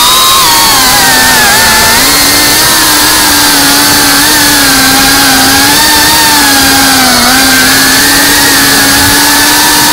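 FPV quadcopter's electric motors and propellers buzzing loudly, heard from the quad's onboard camera, at a steady pitch that wavers gently up and down with throttle changes.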